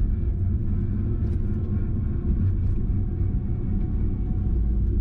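Steady low rumble of wind on the microphone and road noise while riding an electric three-wheeler, with no engine sound.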